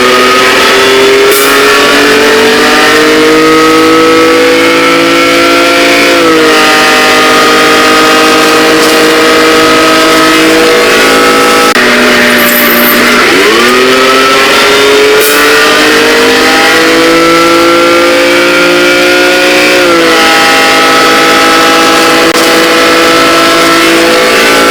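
A motor vehicle's engine: its pitch swoops up, climbs slowly, drops abruptly about six seconds in and then holds steady. The same sequence repeats about twelve seconds later.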